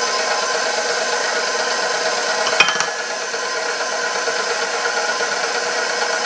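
KitchenAid Professional 5 Plus stand mixer's motor running steadily with a mechanical whine as its spiral dough hook kneads flour-and-water dough in the steel bowl, just turned up to a higher speed. A single sharp knock comes about two and a half seconds in.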